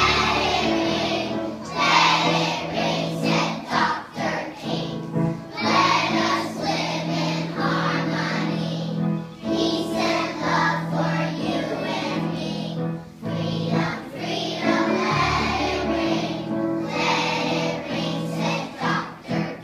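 A choir of young children singing together over an instrumental accompaniment with steady held low notes, the voices coming in phrases a few seconds long.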